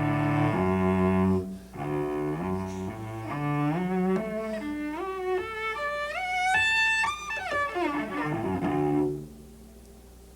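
Solo cello playing: sustained double stops low in the range, then an arpeggio climbing in steps into the high register and coming back down, stopping about nine seconds in.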